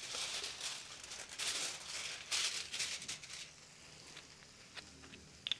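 Aluminium foil crinkling and rustling in irregular bursts as it is handled and folded, for about three and a half seconds, then a few light taps and clicks.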